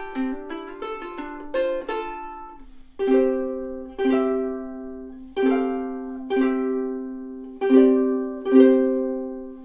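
aNueNue US3K koa soprano ukulele played solo: a few seconds of quick plucked single notes, then full chords strummed about once a second, each left to ring and fade.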